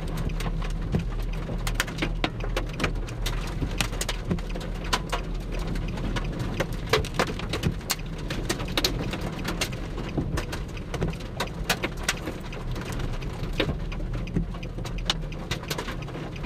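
Heavy raindrops striking at random, several sharp taps a second, over a steady low rumble.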